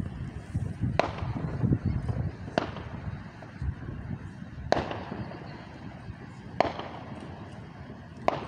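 Fireworks going off: five sharp bangs, one every couple of seconds, each trailing off in a short echo, over a low background rumble.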